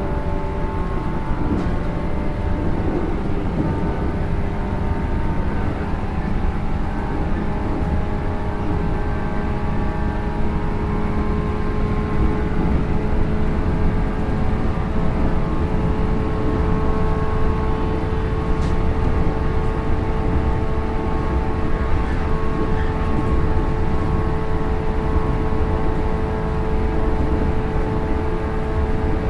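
Running sound inside a JR 107 series resistance-controlled electric multiple unit under way: a low rumble of wheels on rail under a steady traction motor and gear whine. The whine climbs slowly in pitch as the train gathers a little speed.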